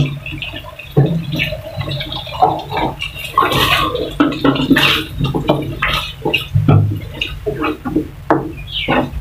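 Thick tomato spaghetti sauce bubbling and plopping in a frying pan, a run of irregular pops and splutters. Near the end a spatula stirs through the sauce.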